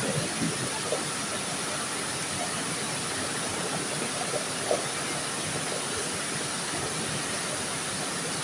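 Steady rushing of river water, with a few faint knocks.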